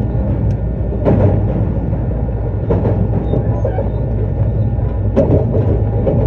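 Running sound heard from inside a JR East E259 series Narita Express electric train at speed: a steady low rumble of wheels on rail, with a few short knocks about a second in, near the middle and about five seconds in.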